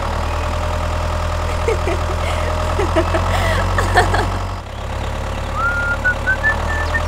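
Tractor engine idling with a steady low rumble that drops out for a moment about two-thirds of the way through. A few short, high whistled notes come in near the end.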